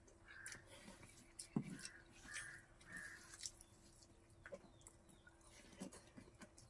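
Faint crow cawing, four short harsh caws in the first three seconds, over soft clicks and smacks of someone eating rice by hand, with one low thump about a second and a half in.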